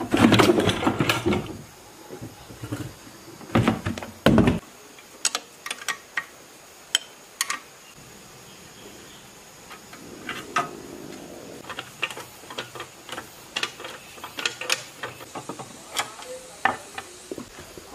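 A heavy clattering bump as a basket carrying a rusty diesel engine and water pump is set down on a wooden table, then two more heavy knocks a few seconds later. After that come scattered short metallic clicks and taps of gloved hands working at the pump's rusted bolts.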